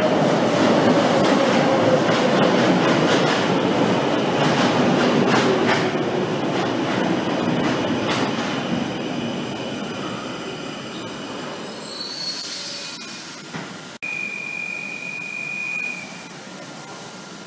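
Brussels metro Type M6 train running in along the platform and braking to a stop, its running noise falling in pitch and dying away over about ten seconds. Near the end there is a brief high squeal, then a click and a steady high tone of about two seconds as the train stands with its doors opening.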